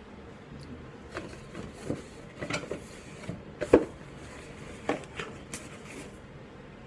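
Irregular clicks and knocks of hard parts being handled, about seven in all, the loudest a little past halfway.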